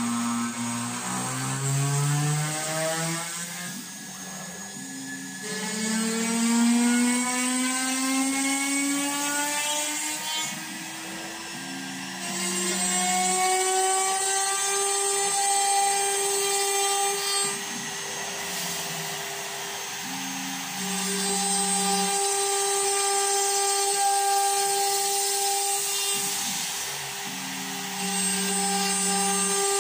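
Homemade CNC router milling pockets into plywood with a 5 mm end mill: the spindle's high whine climbs in pitch over the first half and then holds steady. Beneath it, the Nema 23 stepper motors hum in short spells, starting and stopping as the axes move.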